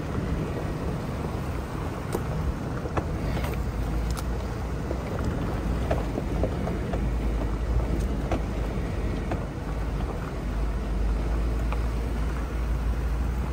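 Jeep driving slowly over a rocky dirt trail, heard from inside the cab: a steady low engine and drivetrain rumble with scattered small clicks and knocks from stones and loose rattles.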